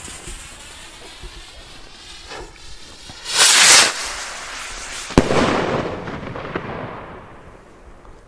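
A 20-gram firework rocket: its lit fuse hisses for about three seconds. The rocket then launches with a loud rushing whoosh, and about two seconds later it bursts with a single sharp bang that fades away slowly.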